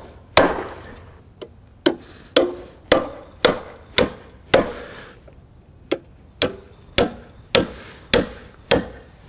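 Stiletto TiBone titanium framing hammer driving nails into a pressure-treated 2x8 lumber frame: a dozen or so sharp blows, about two a second, with a brief pause a little past halfway.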